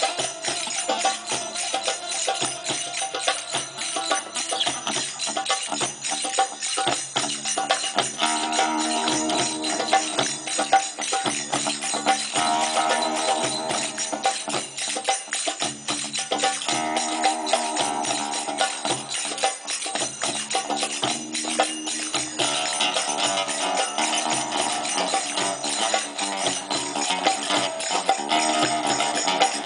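Live music with a busy jingling percussion rhythm over a melody from pitched instruments.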